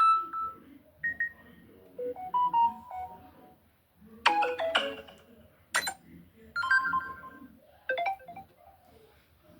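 A run of iPhone notification tones played one after another: about six short electronic chimes and little melodic beep phrases, each a second or less, with brief gaps between them.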